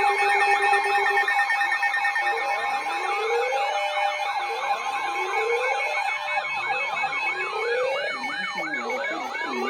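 Several electronic sirens sounding at once. Fast up-and-down yelping sweeps run over slower wails that rise about every second and a half, with steady tones beneath, one of them pulsing.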